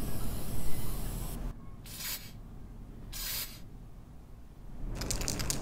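Aerosol spray-paint can hissing in short bursts as paint is sprayed onto a wall. Two clear bursts come in the middle, about a second apart.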